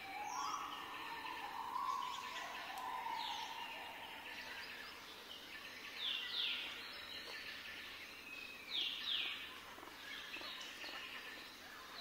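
Zebra finches calling: short, harsh calls dropping in pitch, coming in ones and twos every few seconds, loudest about six and nine seconds in.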